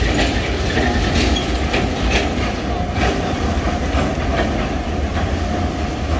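Huwei Sugar Factory's 762 mm narrow-gauge sugarcane train rolling past: a steady low rumble with repeated clacks of the wheels over the rail joints.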